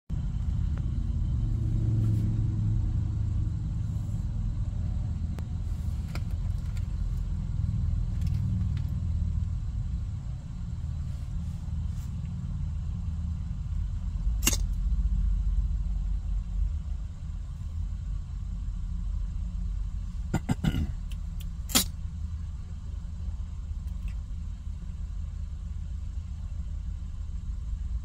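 Steady low road rumble inside a moving car, with a kitten's short, sharp sneezes: one about halfway through, then a quick run of two or three and one more about three-quarters of the way through.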